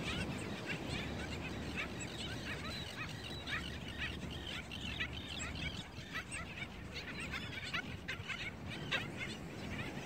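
Black skimmer colony calling: many short, overlapping notes, several a second, over a steady low rumble.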